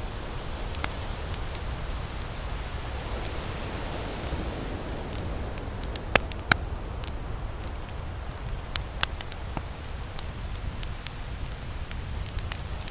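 Campfire crackling, with scattered sharp pops, the loudest about six seconds in, over a steady low rush of surf that swells now and then.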